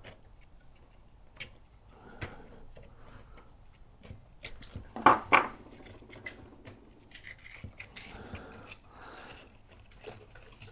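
Small handling sounds of a pull-chain lamp socket being taken apart by hand: light metal clicks, rubbing and scraping of the parts, with two sharper clicks about five seconds in.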